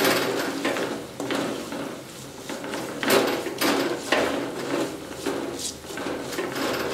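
Slotted wooden spatula stirring and scraping sautéing onions and spice powder around an earthenware clay pot, in a series of irregular scraping strokes.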